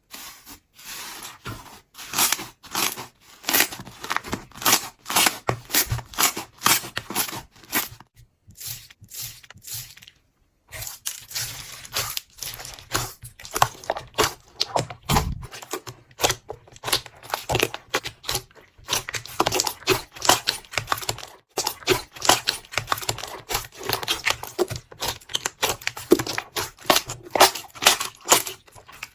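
Slime being squeezed and stretched by hand, giving off a fast run of small crackles and pops. There is a brief pause about nine seconds in.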